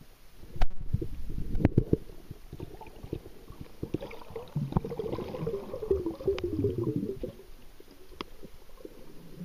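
Muffled underwater sound as the camera is moved through the water: two sharp knocks in the first two seconds, scattered small clicks, and a stretch of bubbling and gurgling in the middle.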